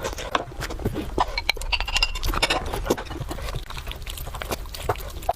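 Close-miked eating sounds: a person chewing food, with irregular wet clicks and mouth smacks.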